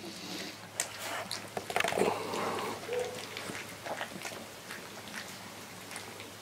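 Husky–malamute puppy, three weeks old, mouthing a plush toy and shuffling on a fleece blanket: faint soft rustles and small clicks, with a short squeak about three seconds in.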